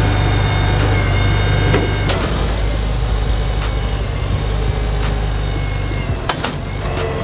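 Propane forklift engine running steadily while the forklift lifts and carries a loaded pallet, with a few sharp knocks: one about two seconds in and two near the end.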